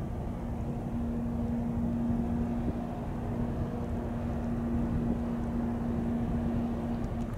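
Low, steady drone of ships' engines across the water, from the harbour tug and the container ship, with a steady hum that comes in about a second in and stops near the end. Wind rumbles on the microphone underneath.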